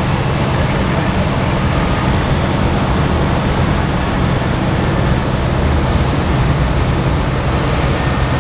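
Steady airport ramp noise from engines running, an even hiss with a constant low hum underneath.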